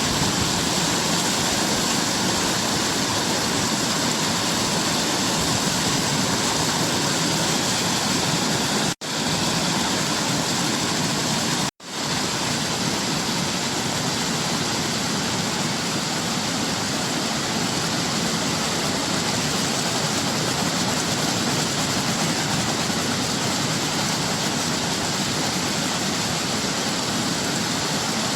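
Waterfall pouring steadily, a continuous even rush of falling water. Twice, about a third of the way in, the sound cuts out for a split second and comes straight back.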